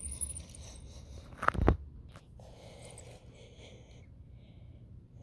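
Faint rustling and scraping as small die-cast toy trains are handled and pushed on a carpet, with a sharp double knock about a second and a half in.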